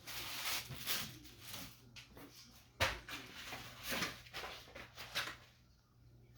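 Scattered kitchen handling noises, rustling and small clatters, with one sharp knock about three seconds in.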